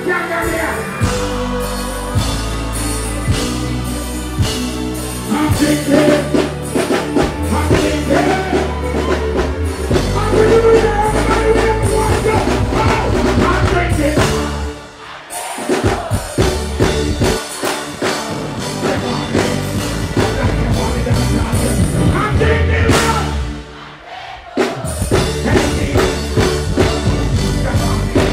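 Loud live reggae-dancehall band music with a vocalist performing over it through the PA. The bass and band drop out briefly twice, about halfway through and again near the end, before the music comes back in.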